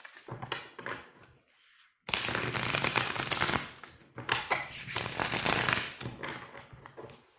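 A deck of tarot cards shuffled by hand: a few light taps and slides, then two riffle shuffles, each a dense, rapid run of card flicks lasting about two seconds.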